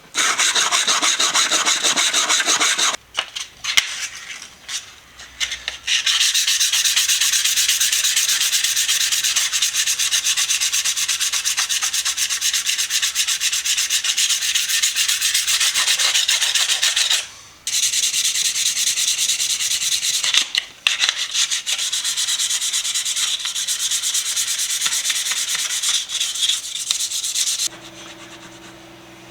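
Rust being scrubbed off steel slip-joint pliers with an abrasive, a dense, high-pitched scraping in long stretches with short breaks about 3 to 6 seconds in, around 17 seconds and around 21 seconds. Near the end the scraping stops and a low steady hum is left.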